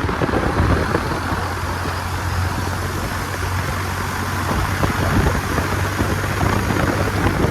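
Vehicle driving at speed: a steady low engine drone under dense road and wind noise, cut off suddenly at the end.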